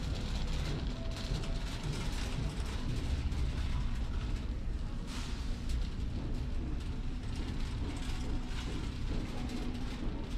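Shopping cart rolling along a supermarket aisle, a steady low rumble with light rattling from its wheels and basket.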